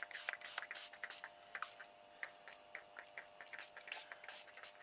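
Small water mister spray bottle pumped again and again in short, irregular spurts, a few a second, sputtering because the water in it is running low.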